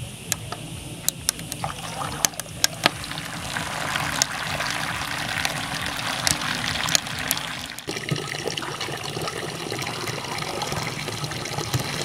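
A few sharp clicks in the first seconds, then water pouring steadily into the heater's metal funnel. About eight seconds in, the sound changes to water from the heater's outlet splashing into a plastic bucket.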